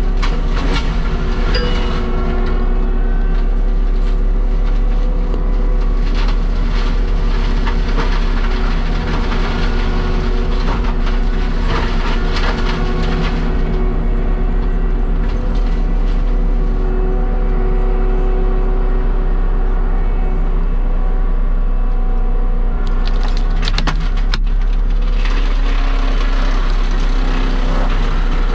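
Heavy diesel land-clearing machine running steadily under load, with repeated bursts of wood cracking and snapping as brush and trees are broken up, the densest cracking near the end.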